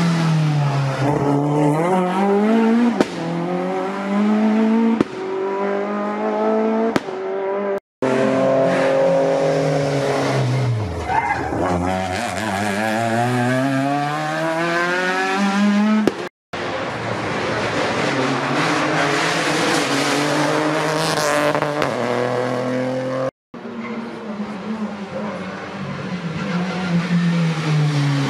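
Rally cars at full stage pace, one after another in four short clips. Each engine revs hard, its pitch dropping as the car brakes for the corner and climbing again through the gears as it accelerates away.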